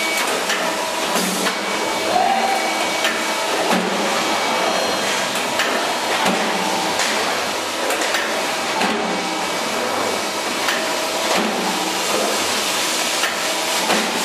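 Sandpaper die cutting machines running in a workshop: a steady hiss and hum with irregular sharp knocks every second or two.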